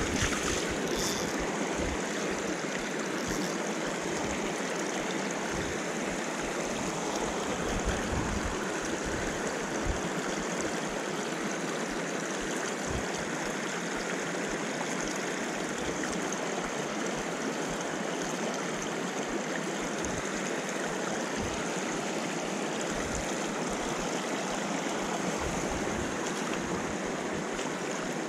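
Shallow moorland stream rushing and rippling over rock slabs close by: a steady, even sound of running water.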